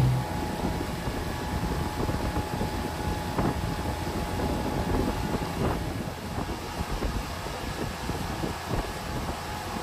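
A yacht under way: its engine runs steadily under a rushing wind-and-water noise.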